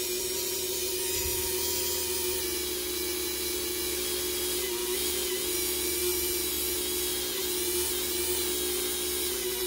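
Handheld rotary tool with a foam polishing pad running steadily as it buffs finishing compound into the 2K clear coat of a plastic model car body: a constant high whine that wavers slightly in pitch.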